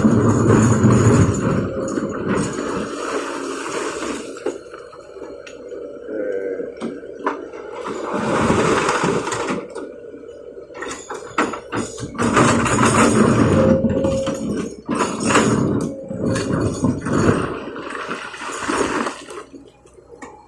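Kobelco excavator loading rock and mud into a truck bed: several loud rushing, clattering dumps of stones a few seconds apart, over the steady hum of the machine's engine.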